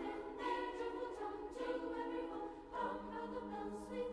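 Faint background music of held, choir-like chords that change twice.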